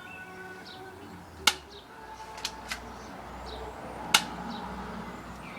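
BB pistol firing: two sharp snaps about two and a half seconds apart, with a couple of fainter clicks between. Birds chirp in the background.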